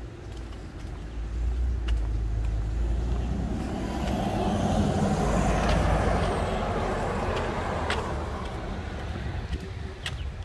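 A Transperth city bus driving past: its engine rumble and tyre noise build up, peak midway, then fade away.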